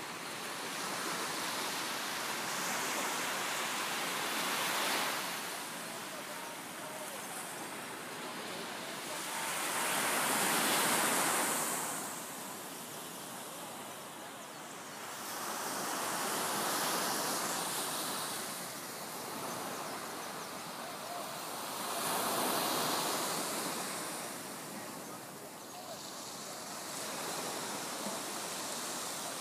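Small waves breaking and washing up a sandy beach, the surf swelling and fading about every five to six seconds, four times.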